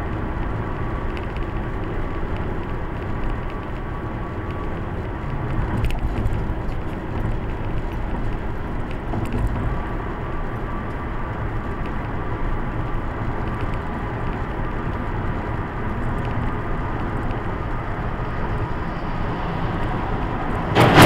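Steady road and engine noise of a car driving at highway speed, heard from inside the cabin. Right at the end a sudden loud crash begins as a large cable spool comes off the flatbed truck alongside.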